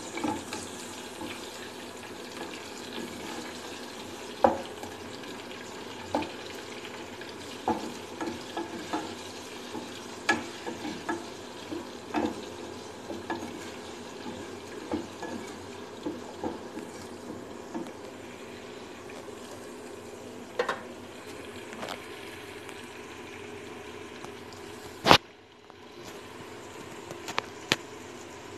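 Hot cooking oil sizzling steadily in a frying pan, with scattered light clicks and knocks of a utensil against the pan. A sharp click comes near the end, followed by a brief drop before the sizzling resumes.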